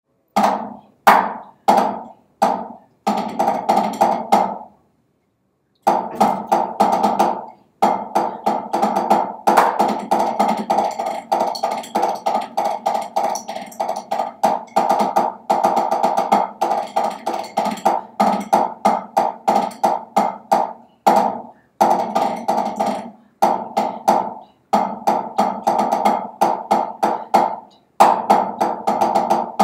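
Drumsticks playing a snare drum solo on a rubber practice pad: a few separate strokes first, a pause of about a second near five seconds in, then dense passages of fast strokes and rolls with accented notes.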